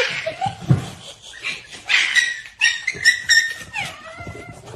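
Dog whining and yipping: a run of short high-pitched cries, some held briefly and some sliding in pitch.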